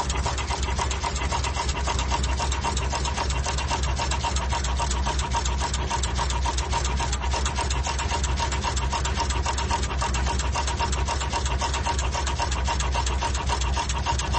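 Through-hole auto insertion machine cycling: its insertion head makes a rapid, regular mechanical clatter of several strokes a second while placing components into a circuit board, with a steady whine and a low hum underneath.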